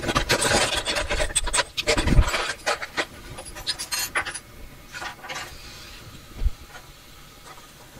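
Scratching, rubbing and crinkling from hands working hot glue off printer wiring, with tools handled on a wooden bench. The noise is dense with small clicks for the first couple of seconds, then thins out, with one knock about six and a half seconds in.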